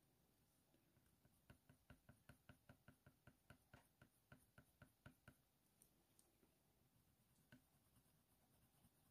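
Faint, quick ticking of a colour pencil tip striking hot-press watercolour paper in short, hard-pressed shading strokes. It runs at about five ticks a second for some four seconds, then a few scattered taps.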